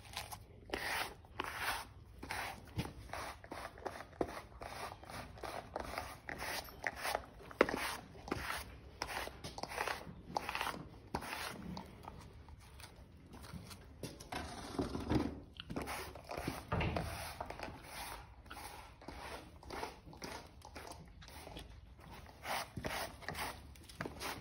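Grooming brush scratching through a horse's thick, shedding winter coat in repeated strokes, about one or two a second. The strokes ease off for a while after the middle, and a few dull low thumps come in between.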